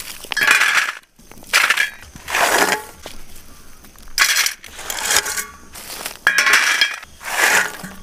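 Handling noise from small paper-wrapped firecrackers being gathered and dropped into a pit in sandy soil: a run of short, sharp rustling noises, about one a second.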